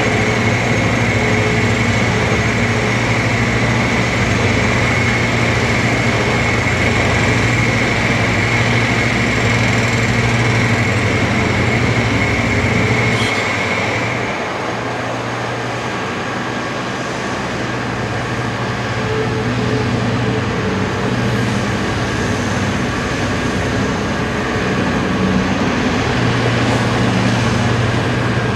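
Heavy diesel engine of a Liebherr R 964B hydraulic excavator running steadily as it works, with a dump truck's diesel alongside. A high steady whine sounds until about halfway, then stops and the overall level dips slightly.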